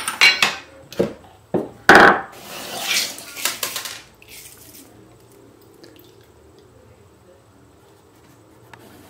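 Knocks as the lid of a rotary tumbler barrel is handled, then a hand digging through wet steel tumbling media inside the barrel, clinking and sloshing. It stops about four seconds in.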